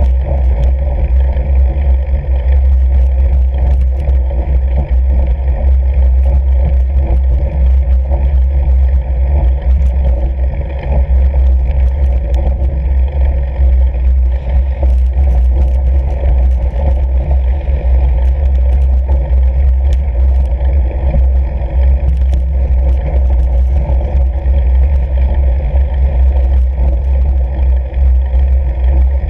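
Steady loud low rumble from a fat bike riding over snow-covered lake ice, heard through a camera mounted on the bike, with light ticks and rattles throughout.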